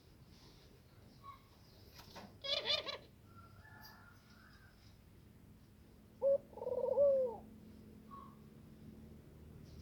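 Dove cooing: a quick run of short notes a little over two seconds in, then one longer coo near the end.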